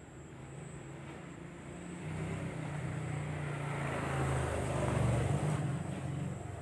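A motor vehicle's engine passing by: a low engine hum grows louder from about two seconds in, is loudest about five seconds in, then fades.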